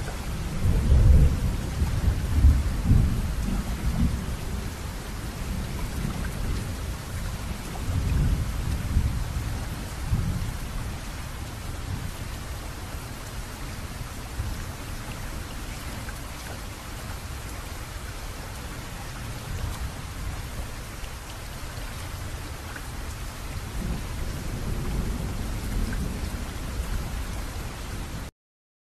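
Steady rain falling, with rolls of thunder rumbling in the first few seconds, again about eight to ten seconds in, and near the end.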